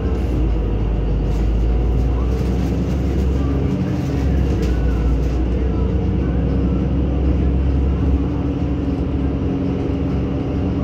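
Inside a moving NefAZ-5299 city bus: steady engine drone and road noise through the cabin. The deepest part of the hum fades about eight seconds in.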